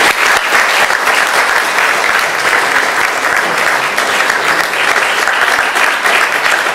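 Lecture-hall audience applauding steadily after a talk ends.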